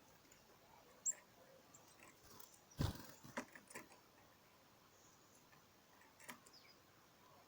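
Small garden birds feeding: a few faint taps and clicks, one sharper knock about three seconds in, and a brief high chirp about a second in.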